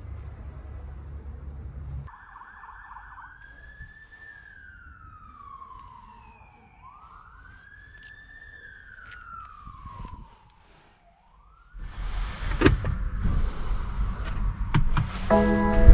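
A low engine rumble from the idling car briefly, then a faint siren wailing slowly up and down in long sweeps. After a short gap come louder knocks and rustling as the car door is opened and the driver climbs into the seat, with the engine starting right at the end.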